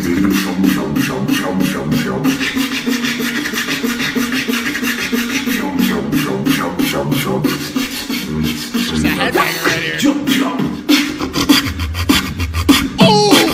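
Solo human beatboxing in a fast, technical tech-flow style: dense rapid-fire percussive clicks and snares over a held hummed tone. About eleven seconds in it switches to deep bass hits, and a quick rising vocal sweep comes near the end.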